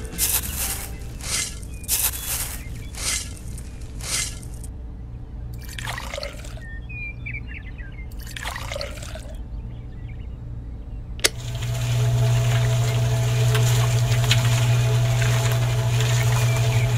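Toy shovelfuls of sand and cement scraping and tipping into a miniature concrete mixer drum, about one a second, then water poured into the drum twice. About eleven seconds in a switch clicks and the mixer's small electric motor starts, running with a steady hum as the drum turns. The hum is the loudest part.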